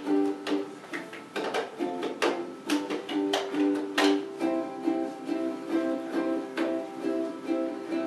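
Ukulele strumming a repeating chord pattern, with the cup-game rhythm of hand claps and a plastic cup knocked on a tabletop.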